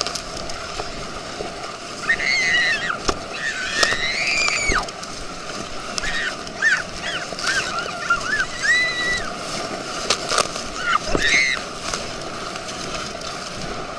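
Water rushing and slapping against an inflatable tube towed at speed behind a motorboat, with sharp splashes. High-pitched shrieks break in several times, the loudest a few seconds in and again near the end.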